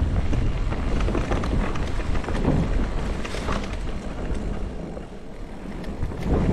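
Wind buffeting the microphone over a low rumble and many sharp rattling clicks from a mountain bike riding rough ground. The noise eases about five seconds in and grows louder again near the end.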